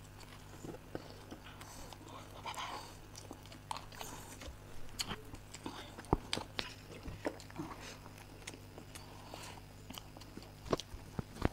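People chewing and biting into chocolate cake: soft mouth sounds with scattered small clicks and smacks, over a low steady hum.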